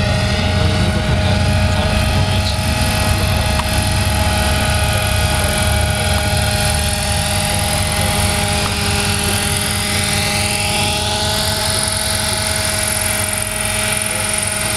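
Radio-controlled scale model UH-1B Huey helicopter flying in and coming down to hover low: steady engine and rotor sound, with a high whine rising in pitch in the second half.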